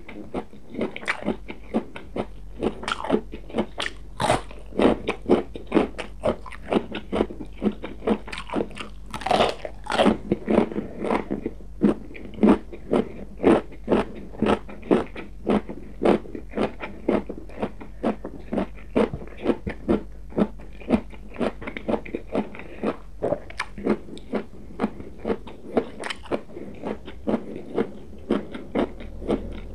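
Close-miked chewing of crunchy raw vegetables: a steady run of crisp crunches, about two a second.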